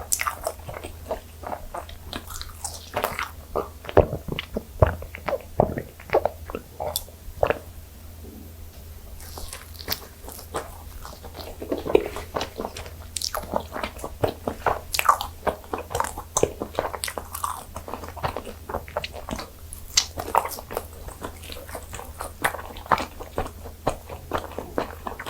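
Biting and chewing of butter-toasted gijeong-tteok (Korean fermented rice cakes): a steady run of short mouth clicks, smacks and crunches.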